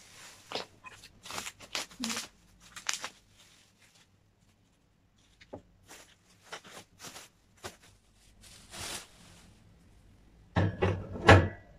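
Plastic packaging wrap crinkling and tearing as it is pulled off the metal wire parts of a dish rack, in quick crackling bursts over the first few seconds, then sparser rustles and clicks. A louder knock and rattle comes near the end.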